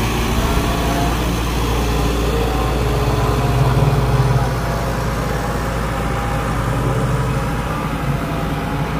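Diesel engine of a Bomag single-drum road roller running steadily as it drives over loose gravel, getting a little louder about four seconds in.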